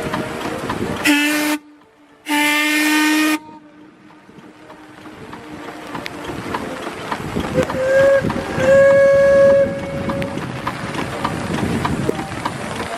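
Steamboat whistles: a short low blast and then a longer one, with a sudden gap between them, in the first few seconds. A higher-pitched whistle gives a short toot and then a longer one about eight to nine seconds in, over a steady hiss of rain and water.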